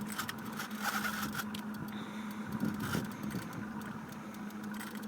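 Boat engine running steadily, a constant hum under noise from wind and water.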